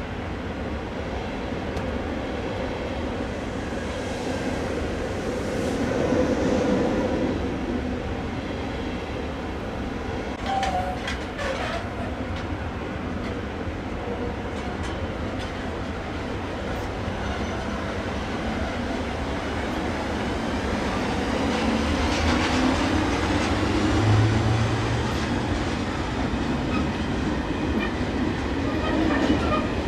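Passing trains on electrified track: a double-deck passenger train rolls by, then a freight train of hopper wagons hauled by two red electric locomotives comes past, its wheels clattering over rail joints. A quick run of sharp clicks comes about a third of the way in, and the sound grows louder over the last third as the freight train draws level.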